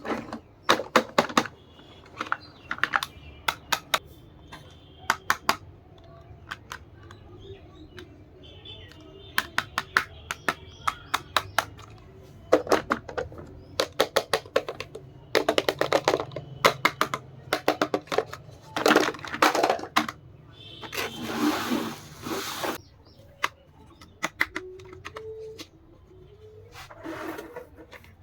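Hard plastic toy dolls-house pieces and furniture being handled, clicking and tapping in quick clusters of sharp knocks, with a few short stretches of rustling packaging.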